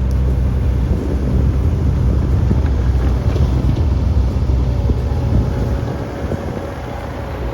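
Mini excavator's diesel engine running steadily at working speed, a low, loud drone, with a thin steady tone from the machine joining about two-thirds of the way in.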